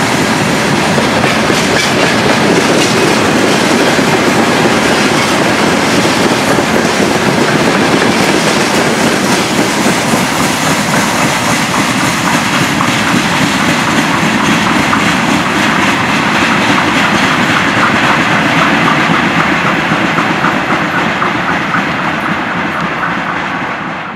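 Freight train of covered hopper wagons rolling past close by. Steady wheel-on-rail noise with a clickety-clack of wheels over rail joints, fading somewhat near the end.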